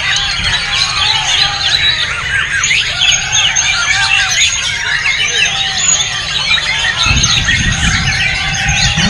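A dense chorus of caged white-rumped shamas singing at once: many overlapping whistles and chirps. A low rumble comes in about seven seconds in.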